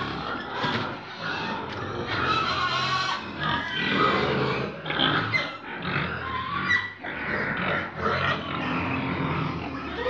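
A pen of pigs grunting and squealing, many animals calling over each other without a break.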